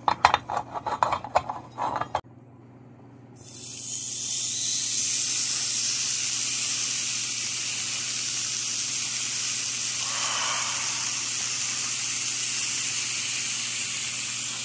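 A grill pan knocks and clatters as it is set on a small tabletop burner. From about three and a half seconds in, a thick hanwoo beef tenderloin steak sizzles steadily on the hot pan.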